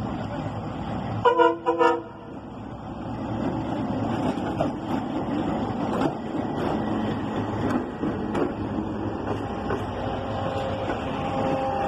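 Diesel locomotive horn sounding two short blasts about a second in. The locomotive and its passenger coaches then roll past, engine running and wheels clicking over the rail joints.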